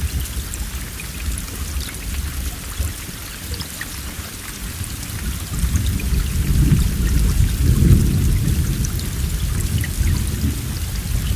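Steady heavy rain hissing, with scattered drop ticks. About halfway through, a low roll of thunder builds, peaks and then slowly dies down under the rain.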